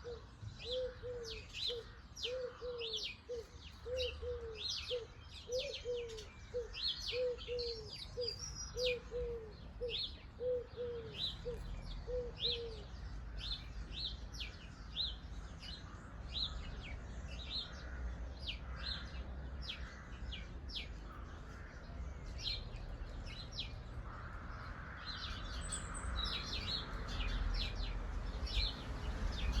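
Garden birds chirping with many short, high calls, joined for the first dozen seconds by a lower call repeated about twice a second. A low rumble builds in the second half.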